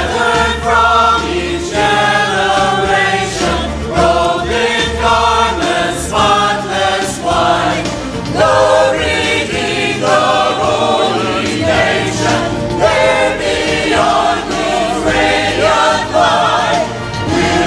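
Church choir singing a gospel anthem over instrumental accompaniment with steady sustained bass notes.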